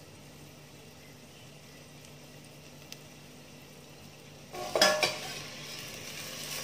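Stainless steel bowl clanking against a steel pot as broccoli florets are tipped in, about four and a half seconds in, followed by a louder sizzle from the pot. Before that, a steady low hum with a faint hiss.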